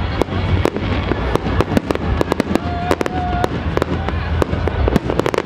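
Aerial fireworks display: a rapid, continuous run of bangs and crackles from shells bursting overhead, over a steady low rumble.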